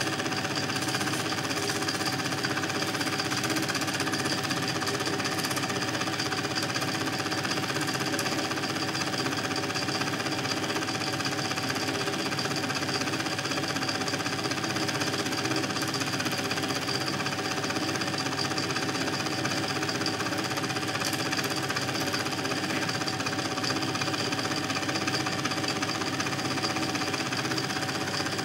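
A film projector running: a steady, fast mechanical clatter from the film transport, with a constant high hum over it.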